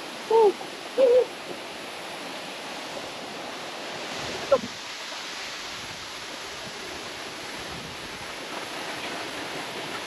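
Waterfall pouring with a steady rush of water. Two short, loud hoot-like calls come about half a second and a second in, and a brief sharp sound about four and a half seconds in.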